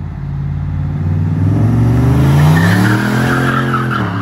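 A turbocharged 8.1-litre big-block V8 in a Silverado pickup accelerating hard, its engine pitch rising for about two seconds and easing off near the end. The tyres squeal as it swings through a turn, starting about two seconds in.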